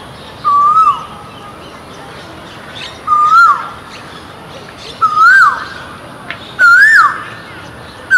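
Male Asian koel calling its repeated 'ko-el' note, each a whistle that rises and then drops steeply. It calls four times, with the gaps shortening and each call pitched a little higher than the last, and a fifth begins right at the end.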